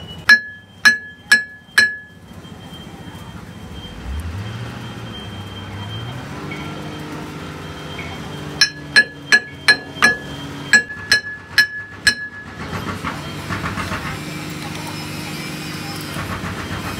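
Hammer blows on steel at an excavator wheel hub, each sharp and ringing: four in the first two seconds, then a faster run of about nine from around eight and a half seconds in. Behind them a low hum rises in pitch about four seconds in and then holds steady.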